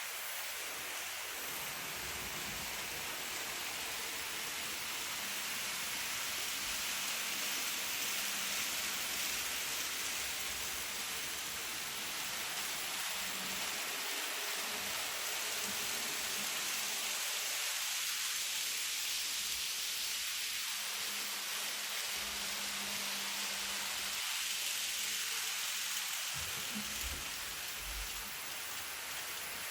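N gauge model train running on the layout track: a steady whirring hiss from the wheels and motor, with a faint hum that swells and fades twice in the second half as the train passes closer.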